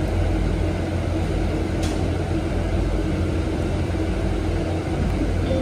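Cabin noise inside a moving battery-electric bus: a steady low road and tyre rumble with a faint steady hum and no engine note, and a single light click about two seconds in.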